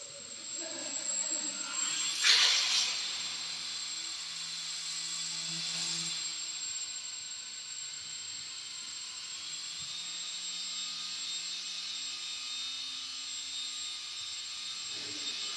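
Electric motor and propeller of a control-line Gee Bee model running, a steady whirr with a thin high whine, with a brief louder surge about two seconds in.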